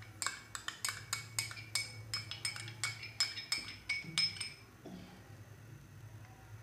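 A metal spoon clinking rapidly against the dishes, about five taps a second, as butter is knocked off it into a non-stick frying pan. The clinks stop after about four and a half seconds, leaving a faint low hum.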